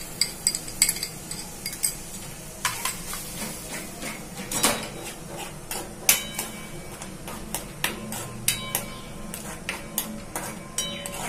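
Steel ladle stirring and scraping tomato puree in an aluminium kadai, with irregular metal clinks against the pan, some of them ringing briefly, over a light sizzle.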